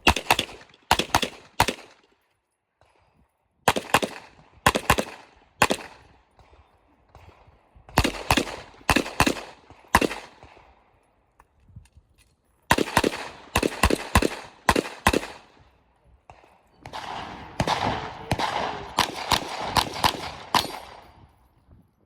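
Pistol shots fired in rapid strings, about five strings with short pauses between them, several quick shots in each, often in close pairs.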